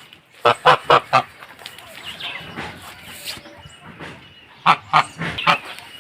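Farm poultry calling: two quick runs of about four loud, honk-like calls each, one about half a second in and another near the end.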